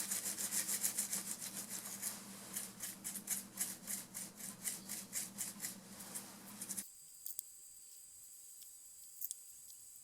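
Toothbrush wet with alcohol scrubbing a fire-damaged oven control circuit board, in quick back-and-forth strokes several times a second. The scrubbing stops abruptly about seven seconds in, leaving near silence with a couple of faint clicks.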